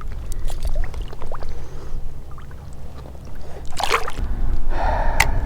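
Shallow bay water sloshing and splashing around a wading angler, with a steady low rumble and scattered small splashes. A sharper splash comes just before four seconds in.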